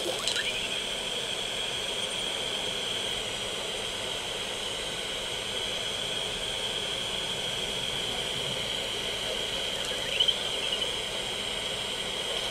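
Steady hiss with a constant high whine, broken by short chirping glides just after the start and a brief, louder chirp about ten seconds in.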